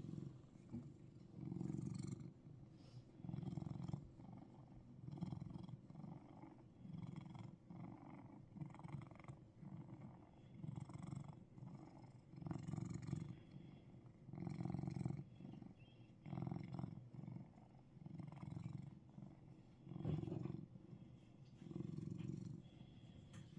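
Russian Blue cat purring while being scratched under the chin, a low rumble that swells and fades with each breath, about every two seconds.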